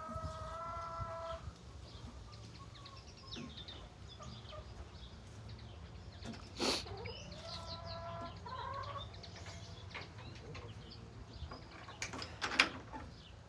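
Chickens clucking and calling, with a drawn-out call at the start and another about halfway through. A short sharp noise comes a little before the second call, and another, the loudest sound, comes near the end.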